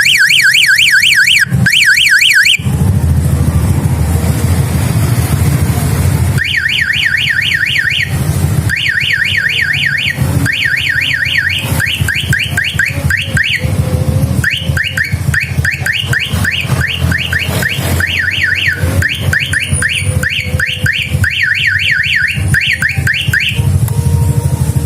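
Small electronic police-style siren on a motorcycle sounding fast rising yelps, several a second, in repeated bursts with short breaks between them.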